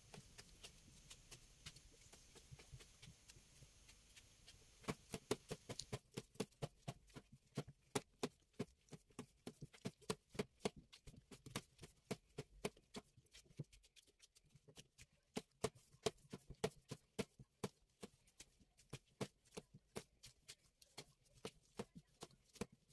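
Faint, irregular slaps and clicks of gloved hands kneading and pressing dough on a silicone baking mat. Sparse at first, then busier from about five seconds in.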